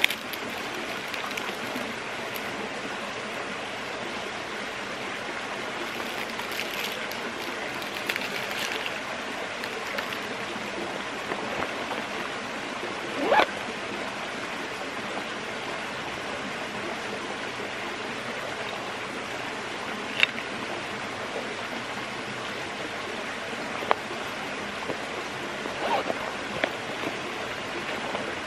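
Steady rush of flowing water, with a few brief clicks and taps of small objects being handled scattered through it.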